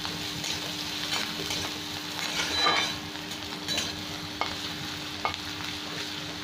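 Chopped onion sizzling in hot oil in a kadai, being fried toward browning, while a metal spatula scrapes and stirs it around the pan. The spatula gives several scraping strokes, then two light sharp taps in the second half.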